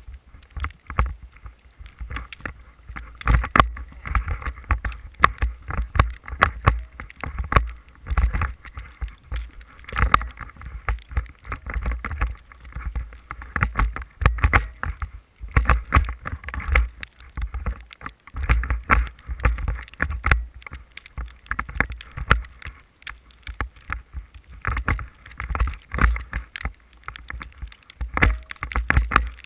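Rapid, irregular buffeting of wind and powder snow on the camera's microphone while a snowmobile ploughs through deep snow, with heavy low rumble under the gusts and no clear engine note.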